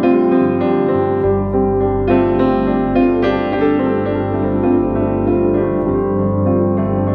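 Soft background piano music: a slow run of single notes struck about twice a second over sustained chords, with a low bass note coming in about a second in.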